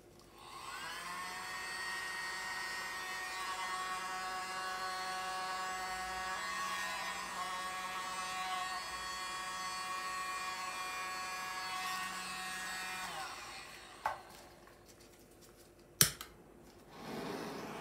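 Small handheld electric blower's motor whining at a steady high pitch. It spins up about half a second in, dips briefly in pitch midway, and winds down about two-thirds through. Two clicks follow, the second loud and sharp, and near the end a rush of air starts from a second blower.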